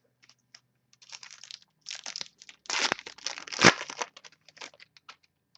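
Foil trading-card pack wrapper crinkling and tearing as a pack is opened, with cards being handled: irregular crackles and rustles, loudest about three and a half seconds in.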